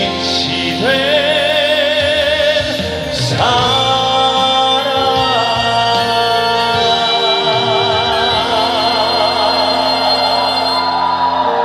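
Closing bars of a live ballad: music with singing, long held notes with a wavering vibrato over a steady band backing.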